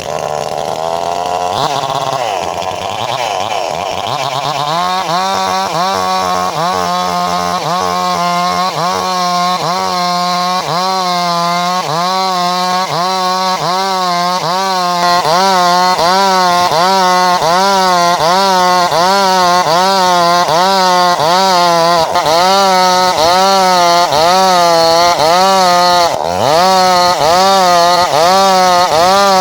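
Two-stroke chainsaw running hard while cutting timber into beams, its engine pitch swinging up and down in a steady rhythm about once a second as the load comes and goes. It gets louder about halfway through.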